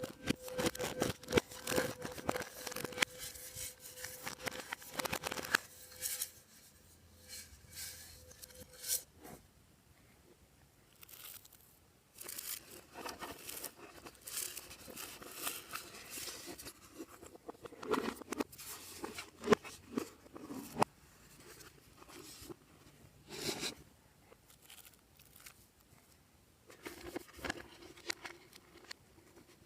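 Hands kneading and stretching glossy slime: bursts of sticky clicking and crackling, with short pauses between handfuls.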